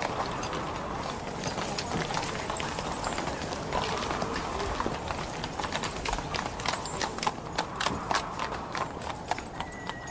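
Horse hooves clopping on stone paving: an irregular run of sharp clicks that grows busier toward the end, over a steady background hum of noise.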